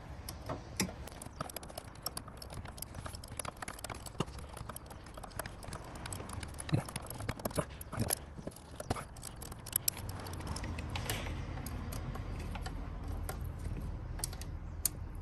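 Irregular metallic clicks, taps and clinks of a spanner working the brake pipe union nuts on an ABS pump in a car engine bay. A low rumble comes in about ten seconds in.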